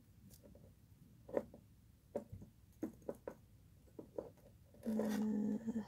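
Faint clicks and taps of beads and green craft wire being twisted and handled at the neck of a glass bottle, about half a dozen scattered ones, followed near the end by a brief hummed vocal sound.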